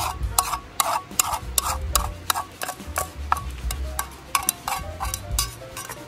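A metal utensil clinking and scraping against a black frying pan as stir-fried food is pushed out into a bowl: a quick, uneven run of sharp clicks, several a second. Background music plays underneath.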